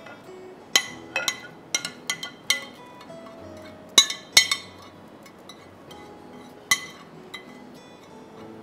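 Metal spoon scraping and tapping against a white ceramic plate and bowl: a string of about ten sharp, ringing clinks, most of them in the first half and a couple more later.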